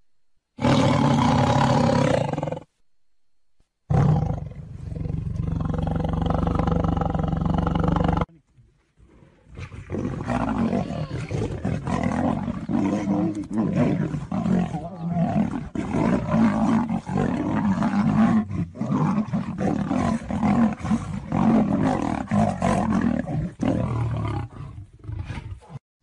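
Big cats roaring: two long roars in the first eight seconds, then a long run of pulsing roars lasting until just before the end.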